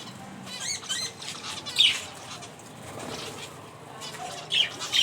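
Birds calling and chirping in short repeated notes, with sharp loud calls at about two seconds and twice near the end, over a steady rustling background.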